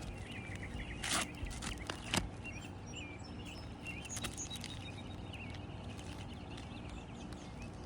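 Small birds chirping over and over, with short rising and falling calls, over a steady low outdoor rumble. Two brief scuffing knocks come about one and two seconds in.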